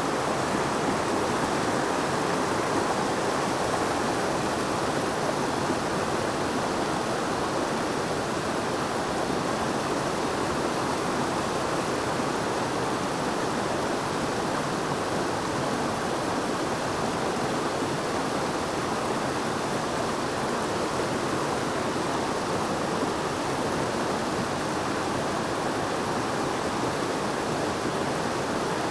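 A brook rushing and cascading steadily, a constant even roar of moving water.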